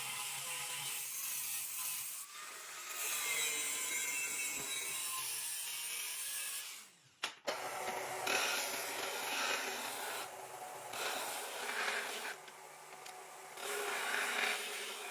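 Abrasive shaping of the steel knife blank: steady rubbing and scraping of a tool on metal, broken off briefly about seven seconds in before it carries on.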